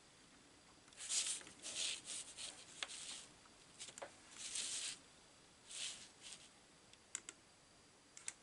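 A paper towel rustling and scraping as it is slid and turned on a paper-covered table, in several short swishes, with a few light taps and clicks.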